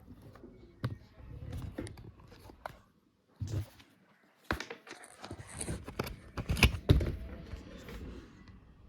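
Hands handling a laptop: scattered clicks and knocks with rubbing and scraping between them, the loudest knocks coming about six to seven seconds in.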